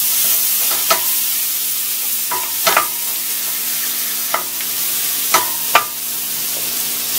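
Raw shrimp sizzling as they brown in butter in a stainless steel pot, stirred with a wooden spoon that knocks against the pot about six times.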